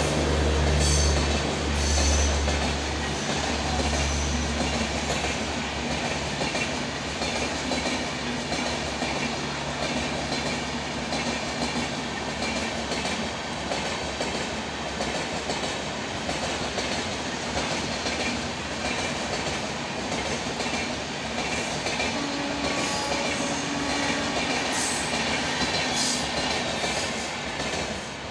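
Train running past at a station, its wheels clattering over the rail joints with a steady, loud rumble. A low drone is strongest in the first few seconds and then eases.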